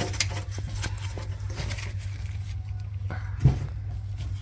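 Faint clicks and taps of a gloved hand turning out a 16 mm transmission filler plug, with one louder knock about three and a half seconds in, over a steady low hum.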